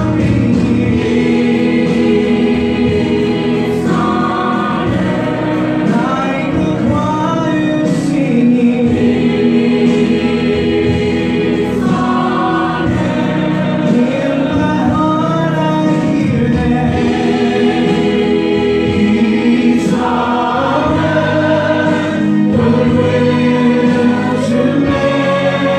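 Mixed choir of men and women singing a Christmas song together over a steady musical accompaniment.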